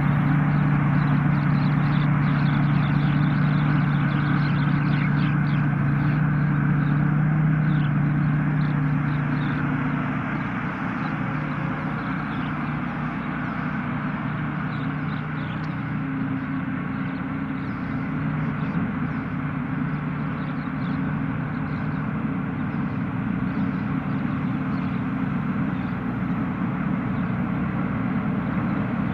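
Thai Seng Yont 'Chao Payu' rice combine harvester running steadily while harvesting, its engine hum mixed with the noise of the machinery; it gets a little quieter about ten seconds in.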